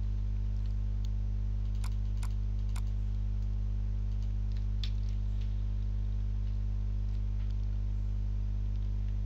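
Steady electrical mains hum, a low drone with a stack of overtones, with a few faint clicks in the first half.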